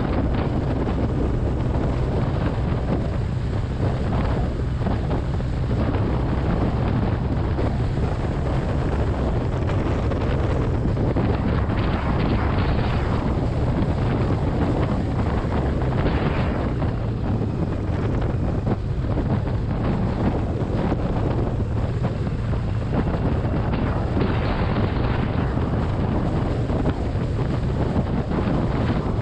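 Wind rushing over the microphone of a motorcycle-mounted camera at road speed, over the low steady hum of the motorcycle's engine.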